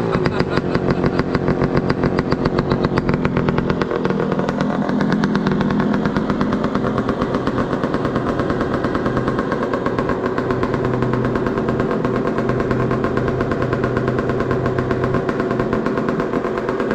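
ATV engine running through an aftermarket exhaust, holding a steady speed with a rapid, even exhaust pulse.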